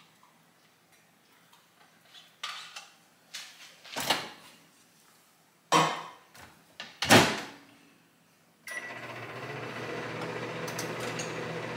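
A run of kitchen knocks and clunks, like cabinet or appliance doors shutting and dishes set down on the counter, then about nine seconds in a microwave oven starts running with a steady hum.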